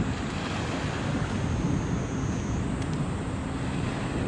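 Steady low rumble and rushing noise of wind buffeting the microphone over waves on the water, with no distinct events.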